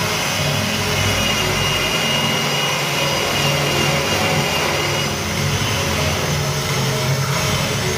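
Electric drill running steadily under load, driving a cutter through a door-lock mortising jig into the wooden edge of a door, with a thin high motor whine.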